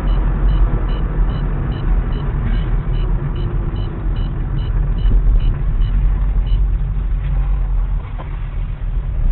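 Car driving along a highway, heard through a dash cam inside the cabin: a steady low rumble of engine and tyres. Over it, short high beeps repeat about two and a half times a second and stop about six and a half seconds in.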